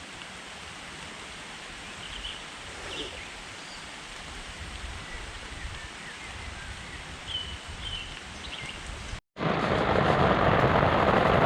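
Steady rain with a few faint, short bird chirps. About nine seconds in, the sound cuts out for a moment and comes back as much louder, heavier rain.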